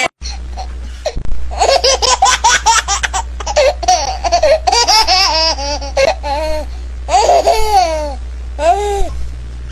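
High-pitched giggling laughter in quick runs of short rising-and-falling notes, starting about a second and a half in, over a steady low hum.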